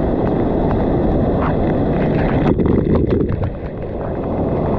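Artificial waterfall pouring into the water close to the microphone, a loud steady rush, with a quick flurry of drops and splashes hitting the camera a little past halfway.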